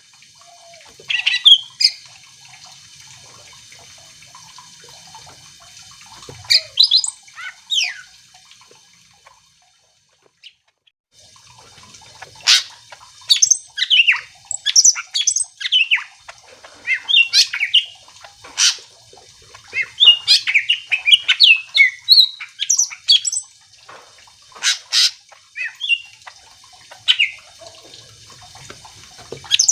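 Green leafbird (cucak ijo) singing vigorously: loud bursts of varied chirps, sharp whistles and quick warbled runs. The song breaks off for about a second and a half a third of the way in, then resumes denser and faster.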